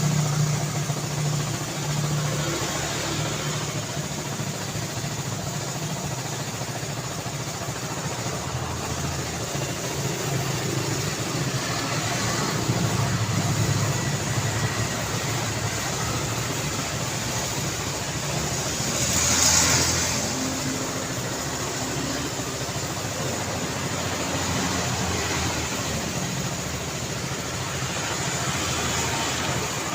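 City road traffic: a steady wash of car engines and tyre noise, with one vehicle passing close just past the middle.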